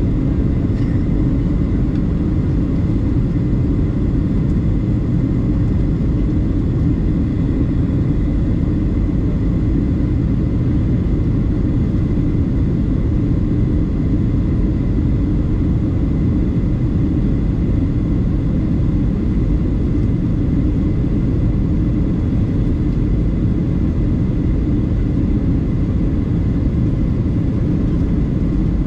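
Boeing 737-700 cabin noise in flight, heard from a window seat aft of the wing: the steady drone of the CFM56-7B engines and the airflow, with a faint steady high whine above it.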